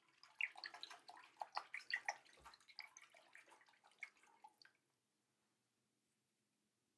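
Water splashing and dripping as a safety razor is rinsed at the sink, with many small clicks and one light knock, stopping about five seconds in.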